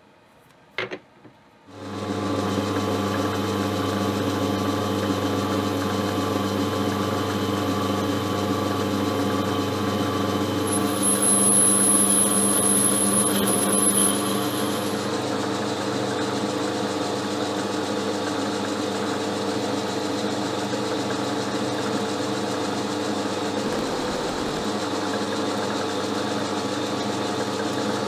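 Small metal lathe running steadily with a humming motor and gear drive while a solid carbide boring bar bores out a stainless steel blank. The sound comes in about two seconds in. From about eleven to fifteen seconds in, a thin high whine sits over the hum and the sound grows a little louder.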